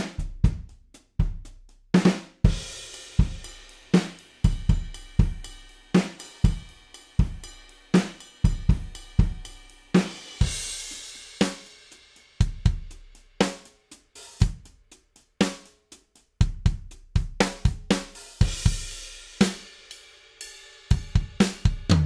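Sampled acoustic drum kit from Toontrack's Stockholm SDX for Superior Drummer 3 playing a steady 120 BPM groove: kick, snare and hi-hat, with a crash cymbal washing in about every eight seconds and busier hits near the end. It is heard through the 'Heavy' mix presets, switching from the Basic to the Compressed Kit preset partway through.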